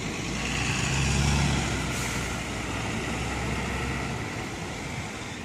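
A city bus engine runs as the bus drives past and away. Its low hum is loudest about a second in and then fades, over steady street traffic noise.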